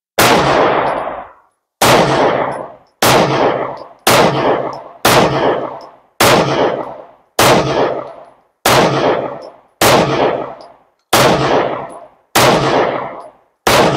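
A 9mm semi-automatic pistol fired twelve times at a slow, steady pace, about one shot every second or so. Each shot is a sharp crack that trails off over about a second of echo.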